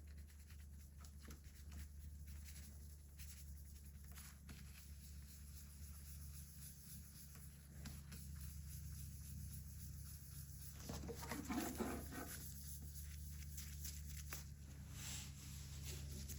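Faint scratching and rubbing of hand work on a Stihl chainsaw guide bar over a steady low hum, with a louder scrape about two-thirds of the way in.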